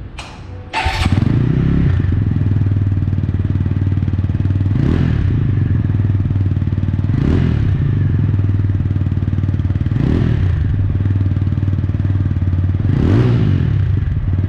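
TVS Apache RTR 200 4V's 197.75 cc single-cylinder engine starts about a second in and settles to a steady idle, heard at its twin-outlet silencer. It is blipped four times, each rev rising and falling quickly.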